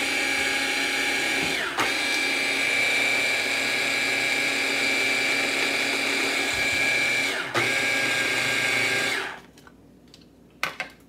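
Small countertop electric mixer running with a steady high whine as it mixes seasoned deviled-egg yolk filling. The motor stops for a moment twice, about two seconds in and again about seven and a half seconds in, then shuts off about nine seconds in, followed by a couple of light clicks.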